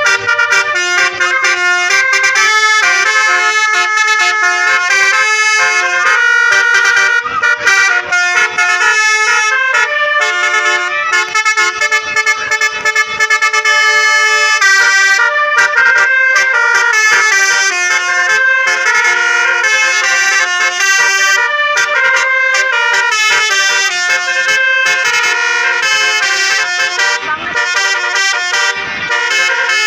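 Tour bus telolet musical air horns (Basuri) playing a melody of quickly changing pitched notes, without a break.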